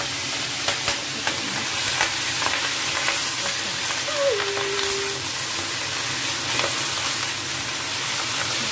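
Baby choy sum sizzling in hot oil in a wok while a spatula stirs and turns the greens, with clicks of the spatula against the wok every second or so.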